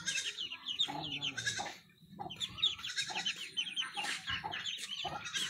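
A brood of young ducklings peeping rapidly and continuously in short, high calls, with a brief lull about two seconds in.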